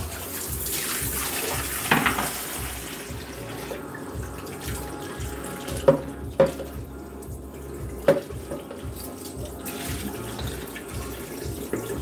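Tap water running into a ceramic wash basin while a small vacuum cleaner's plastic filter is rinsed under it, the flow loudest in the first few seconds. A few sharp knocks stand out, the loudest sounds here, about two, six and eight seconds in.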